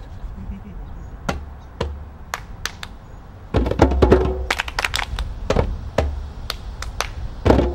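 Djembe played with bare hands: scattered single hits, then a quick flurry of ringing strikes about three and a half seconds in and another near the end.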